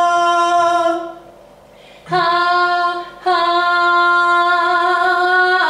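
A single voice singing long held notes on one steady pitch in a vocal exercise: a note that breaks off about a second in, then after a short pause two more sustained notes, the last held for over two seconds.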